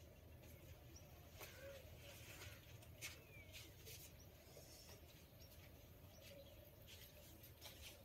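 Near silence, with a few faint ticks.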